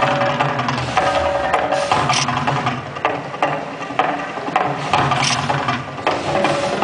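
Percussion-driven music of the volcano show's soundtrack, with drum strikes about once a second over held pitched tones.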